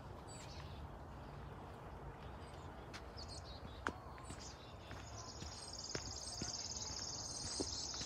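Footsteps on a dirt forest path, with scattered clicks and snaps of twigs and brush as people walk through undergrowth. A steady high-pitched trill comes in about five seconds in.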